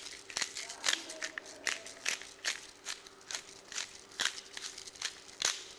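Pepper being added to raw chicken pieces: irregular crunchy clicks and crackles, a few each second.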